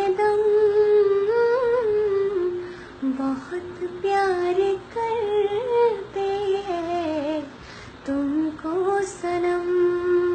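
A woman humming a slow, tender melody with no words, in long held notes with gentle pitch turns, in about four phrases with short breaths between them.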